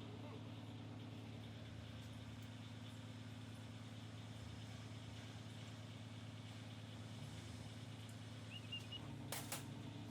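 Steady low hum with a couple of faint clicks near the end.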